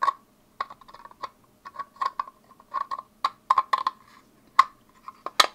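Small irregular plastic clicks and scrapes as a round LED puck light is pressed and slid into the back of a 3D-printed plastic puck, with a few sharper clicks near the end.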